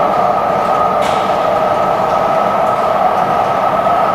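E7 series Shinkansen train running, a steady rushing noise with a faint high whine on top.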